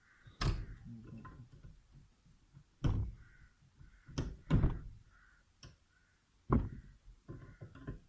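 Several sharp, separate knocks and clunks of tools and small metal parts being handled and set down during the strip-down of a scooter's variator.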